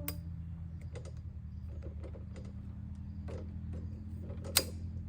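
Scattered clicks and knocks of plastic and metal parts as a small white support pole is fitted onto an animatronic's frame, with one sharper knock near the end. A steady low hum runs underneath.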